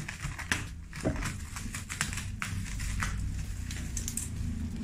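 Plastic bubble wrap crinkling and crackling with irregular sharp clicks as it is slit with a utility knife and peeled back, over a low steady hum.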